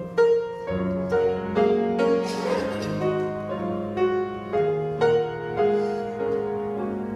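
Piano accompaniment to a gospel song playing an instrumental interlude, chords struck about twice a second.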